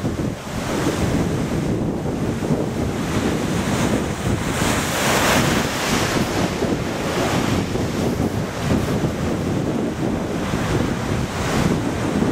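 Sea waves breaking and washing along the side of a stone pier, with wind buffeting the microphone. One wave crashes loudest about five seconds in.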